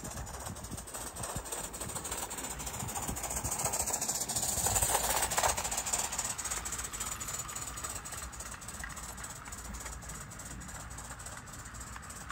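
O gauge live-steam model of an LNER Q6 locomotive running past, with hissing steam and quick exhaust beats. It grows louder to a peak about five seconds in, then fades away.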